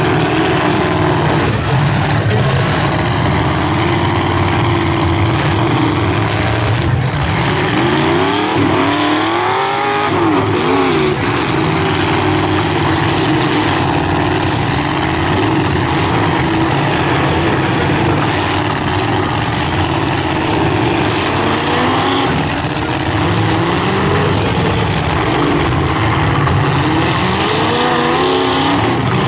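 Several eight-cylinder demolition-derby cars running, their engines revving up and down as they accelerate and ram each other. A single sharp knock about seven seconds in.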